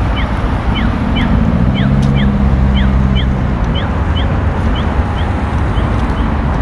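Street traffic noise with a short high chirp repeating evenly about twice a second, the pattern of an accessible pedestrian-crossing signal sounding while the crossing is open. A vehicle engine hums past in the middle.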